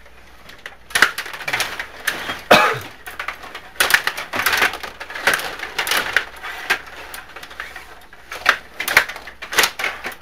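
Stiga table hockey game in play: rapid, irregular clacks and rattles of the plastic players, rods and puck.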